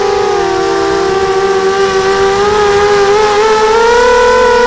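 QAV250 mini quadcopter's electric motors and propellers whining, several close pitches at once, as picked up by its onboard camera. The pitch rises a little about three and a half seconds in as the throttle comes up.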